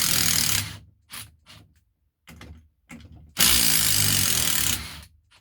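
Brushless cordless impact driver hammering in bursts, driving 8 mm coach screws back out of pre-drilled oak. One burst runs until about two-thirds of a second in, short trigger blips follow, and a second burst of about a second and a half comes near the end.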